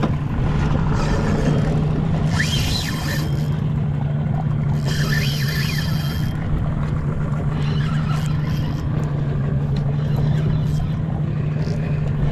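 Outboard motor running steadily at trolling speed, a constant low hum, while a spinning reel is cranked to fight a hooked fish. Two short, higher whining bursts stand out about two and five seconds in.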